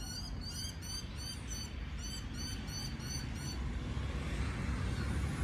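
A bird calling a fast, even series of short, high chirps, about four a second, that stops about three and a half seconds in, over a steady low rumble of distant traffic.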